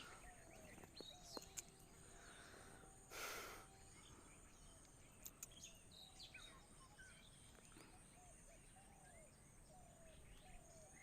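Near silence with faint background bird chirps, repeating in a short series in the second half. A brief scrape or rustle comes about three seconds in, with a few faint clicks.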